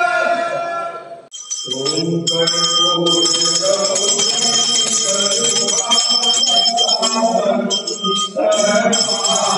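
Temple hand bells ringing continuously during an aarti, with voices singing beneath; the sound drops away briefly about a second in before the bells start.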